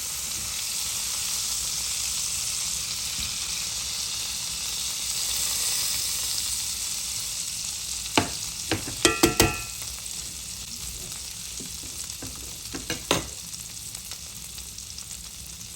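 Filet mignon steaks sizzling in a hot skillet fresh from the oven, the sizzle fading in the second half. About eight seconds in come several sharp, briefly ringing clinks of a utensil against the pan, and one more near the end.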